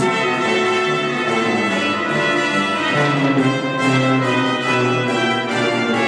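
Brass with a full symphony orchestra playing film music. Loud, sustained brass chords enter suddenly at the start over a bass line that changes note about once a second.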